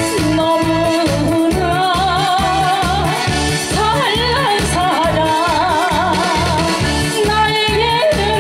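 A woman sings an old Korean pop song into a microphone, her held notes with wide vibrato, over an amplified backing track with a steady beat. She is singing through a cold that has weakened her voice.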